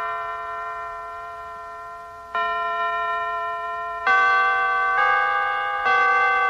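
Church chimes ringing: a held chord fades for about two seconds, then four new strikes come in, each one ringing on over the one before.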